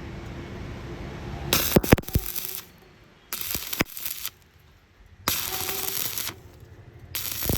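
Stick (arc) welding on thin metal in short stitches: the electrode's arc is struck and broken four times, each time crackling and hissing for about a second with short pauses between. The start-stop technique keeps heat down so the thin metal does not burn through.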